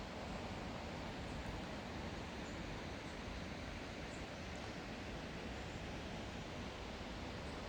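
Steady rush of flowing water from a mountain gorge stream, an even roar without a break.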